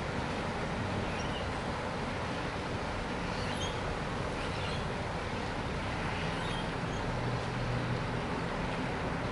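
Steady outdoor hum of distant engines and traffic, with a few faint, short high chirps of rainbow lorikeets.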